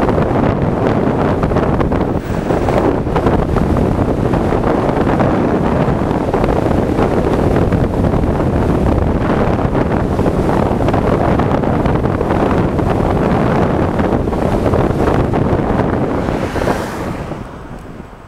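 Wind rushing and buffeting over the microphone of a camera on a moving electric scooter. It is a loud, steady rush that dies away near the end.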